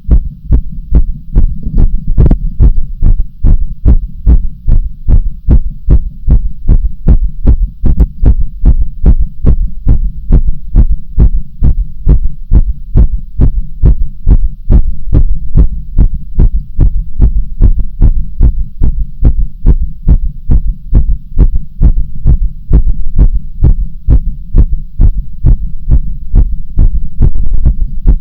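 Human heartbeat, loud and close: an even, regular run of low thuds, about three a second, over a steady low hum.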